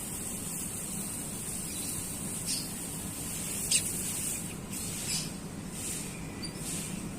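Konin songbird giving about half a dozen short, high chirps at irregular intervals from about two and a half seconds in, the loudest near four seconds, over a steady high hiss.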